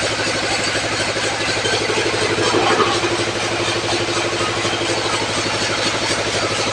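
Tractor engine running steadily with a fast, even firing rhythm. A faint held tone sounds over it from about two and a half to five seconds in.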